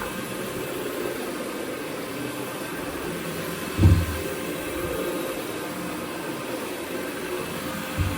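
Carpet-cleaning machine running steadily with a faint steady hum, with a short low thump about four seconds in and a smaller one near the end.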